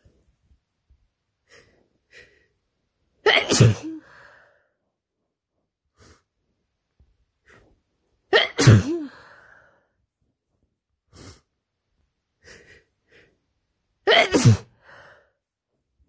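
A person with a cold sneezing three times, about five to six seconds apart, each a loud, sudden sneeze with a falling voiced tail.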